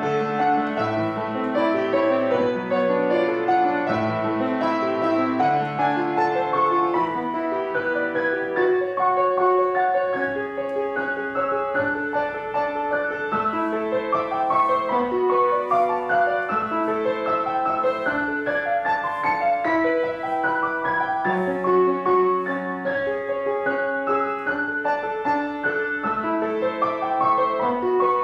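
Background piano music with a melody over chords.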